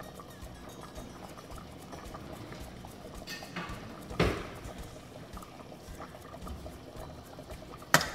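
Thick pork-stomach stew bubbling at a simmer in a stainless steel pot, with a louder bubble burst about four seconds in. Near the end a metal ladle strikes the pot with a sharp clink.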